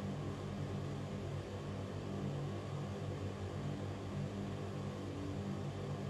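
Ventilation fan running steadily: an even rush of air with a low, constant motor hum beneath it.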